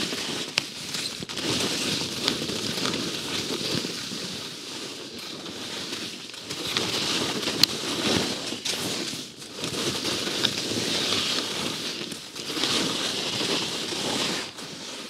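Line Sakana skis scraping and chattering over ungroomed, tracked-out snow through a series of turns. The hiss swells and fades with each turn, every two seconds or so, with a few sharp clicks.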